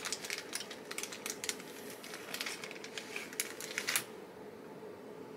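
Small electronic kit components clicking and ticking as they are sorted through by hand, an irregular run of light clicks that stops abruptly about four seconds in, leaving a faint steady hiss.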